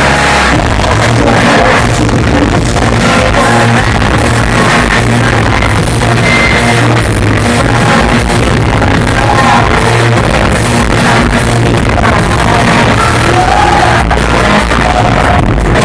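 Loud live rock music from a full band, with singing at times.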